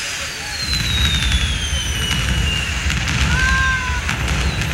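Fireworks sound effect for a projection-mapped fireworks show: a long falling whistle, then a low rumbling boom with light crackling that carries on to the end.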